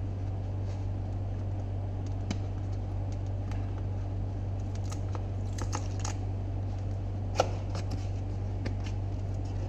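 Scattered crackles and clicks of adhesive tape being peeled off a cardboard box and the box's lid flap being opened, with one sharp click about seven seconds in. A steady low hum runs underneath.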